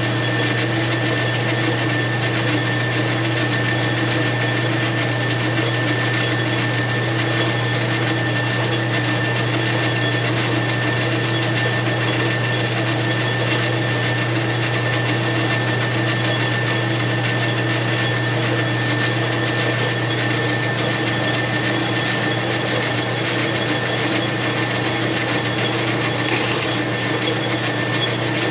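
Metal lathe running steadily, its motor and drive giving a steady hum with a high whine as the spindle turns a Stihl MS661 chainsaw piston in a holder. A brief noise near the end.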